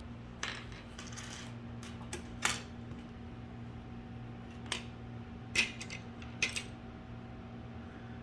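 Plastic LEGO pieces clicking and clattering as they are handled, a short rattle about a second in and then a few separate clicks spread out, over a steady low hum.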